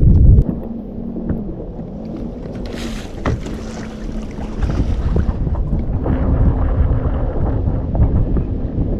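Wind buffeting the microphone on a fishing boat, heavy at first and easing about half a second in. Under it runs a steady low hum, with scattered light knocks.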